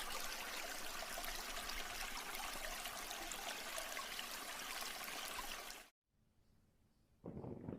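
Steady rush of running water, like a small stream, that cuts off suddenly about six seconds in. After a second of silence a lower sound begins near the end.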